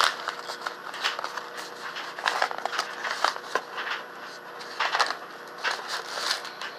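Brown kraft-paper mailer envelope being opened by hand: irregular crinkling and rustling of stiff paper with sharp crackles.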